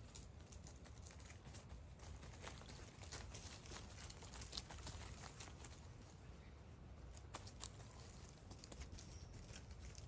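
Near silence, with a faint hum and scattered light ticks and rustles.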